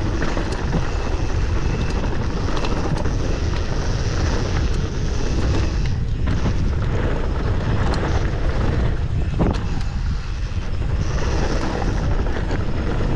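Wind buffeting the microphone during a fast mountain-bike descent: a steady rush and rumble, with scattered clicks and knocks from tyres on dirt and stones and the bike rattling.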